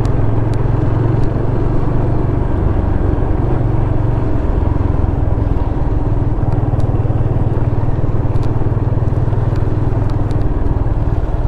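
Motorcycle engine running steadily while riding along, with road noise and no change in speed.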